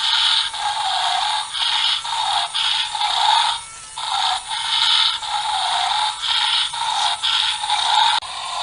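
The small plastic gear motor of a remote-control toy triceratops whirring and grinding as it walks, in repeated pulses with short breaks.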